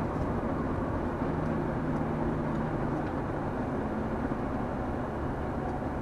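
Car driving on a paved road, heard from inside the cabin: a steady mix of engine hum and tyre and road noise, the engine note shifting slightly.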